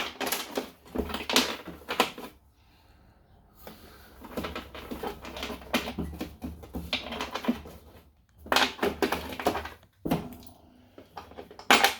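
Hands rummaging through and sorting vintage sewing machine parts: irregular clicks, knocks and rustling of bags and small parts, in a few clusters with short pauses between.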